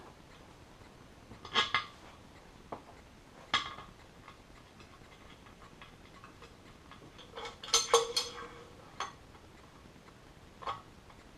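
Scattered light clicks and knocks of a tire-changing tool and wheel being handled while a tire is readied for mounting on an aluminium rim. The loudest clatter comes about eight seconds in, with a brief ring after it.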